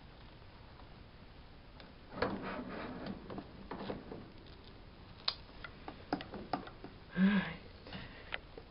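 A red plastic pet carrier being tilted and jostled against a wire cage: a scraping rustle of shredded paper bedding, then a scattered run of light clicks and taps of plastic and wire bars.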